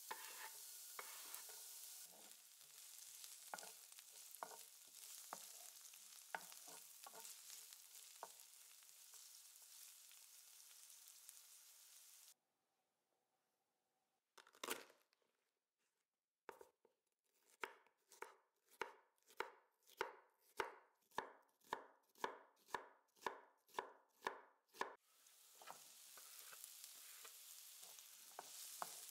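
Vegetables sizzling in hot oil in a frying pan, with a few scrapes and clicks of a wooden spatula. The sizzling stops and gives way to a single knock, then to a knife chopping a red bell pepper on a wooden board in even strokes, about two a second. Near the end the sizzling comes back as the chopped pepper fries with sliced onion.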